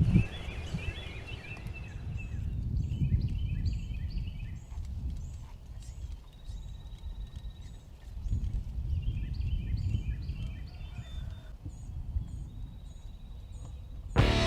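Songbirds chirping in short repeated phrases, with two thin high trills, over a low rumble of wind on the microphone.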